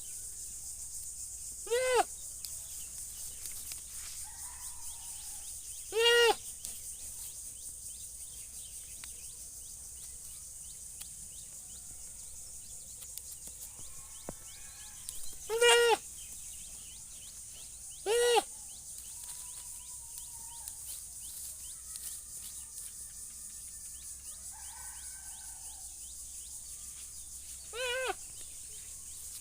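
Goat bleating five times at uneven intervals, each bleat short and pitched, over a steady high hiss.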